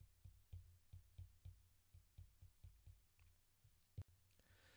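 Faint clicks and taps of a stylus on a tablet screen during handwriting, about three or four light clicks a second, with one sharper click about four seconds in.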